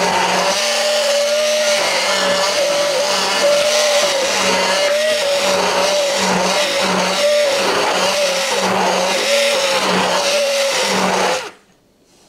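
Electric blender running at speed, whipping eggs and oil into mayonnaise in the final blending: a steady high motor whine over a lower hum that swells and fades rhythmically. It cuts off abruptly near the end.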